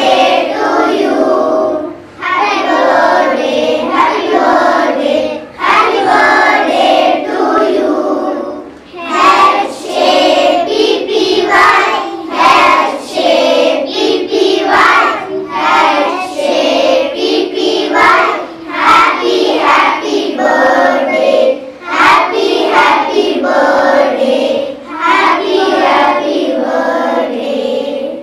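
A group of children singing together in chorus, phrase after phrase with brief breaks between them.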